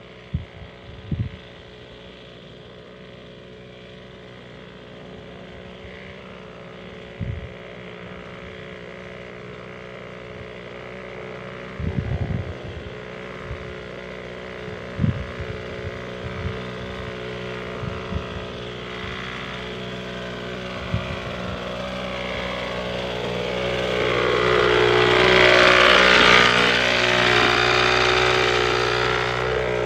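Small engine of a power crop sprayer running steadily, with the hiss of the spray. It grows louder as the sprayer comes close and is loudest about 25 seconds in. A few short low knocks come in the first half.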